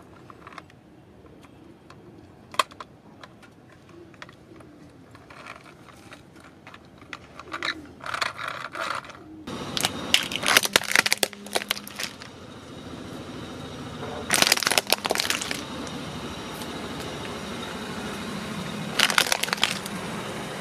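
A plastic toy shark cracking and snapping as a car tyre rolls onto it and crushes it. The cracks come in several bursts, loudest about halfway through and again near the end, over the car's engine running steadily.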